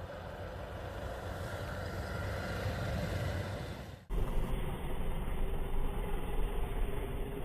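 Off-road vehicle's engine running, slowly growing louder over the first few seconds. About four seconds in the sound cuts abruptly to a louder section with a steady low drone.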